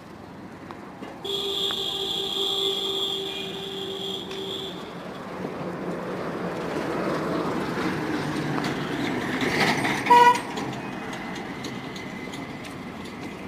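A horn sounds steadily for about three and a half seconds, then a rushing noise builds for several seconds and ends in a short, loud beep.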